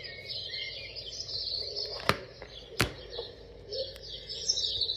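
Birdsong nature sound played through the small speaker of an alarm-clock lamp's sound machine: continual chirping and twittering. Two sharp clicks cut in about two and three seconds in.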